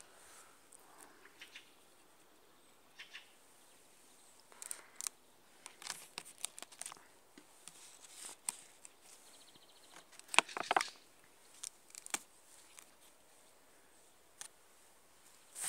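Thin plastic bottle and plastic wrapping crinkling and clicking in the hands as a birch-sap collecting bottle is untied and taken off a birch trunk: scattered short rustles, with the loudest cluster about ten seconds in.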